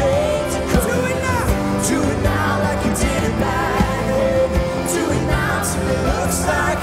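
A live worship band playing: acoustic and electric guitars, bass and a drum kit with cymbals, with several voices singing over them.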